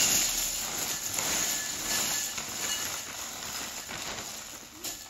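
Frosted Flakes cereal pouring from a plastic bag liner into a glass bowl: a steady dry rush of flakes, loudest at the start and easing off toward the end.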